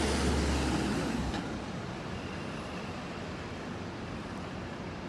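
A motor vehicle passing close by, its low engine rumble fading about a second in, leaving steady street traffic noise.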